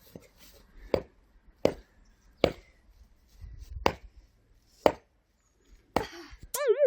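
Axe strikes splitting firewood: six sharp chops about a second apart. Near the end, a short warbling electronic tone.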